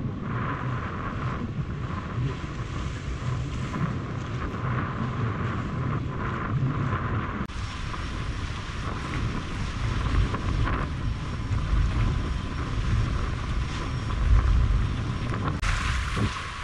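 Strong wind rumbling and buffeting on the microphone, with choppy harbour water lapping against the hull of a small boat. A stronger gust comes near the end.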